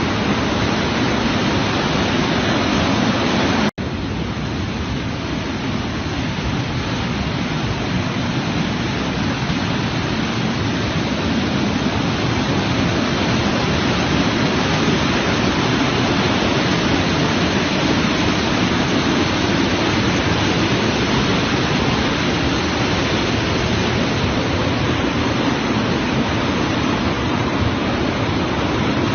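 Water rushing steadily from a dam in flood, a continuous loud wash of noise. It cuts out for an instant about four seconds in, then carries on unchanged.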